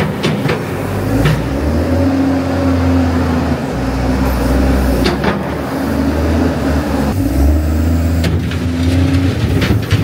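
Wheel loader's diesel engine running, its speed rising and falling as the bucket spreads straw bedding, with a few sharp clanks.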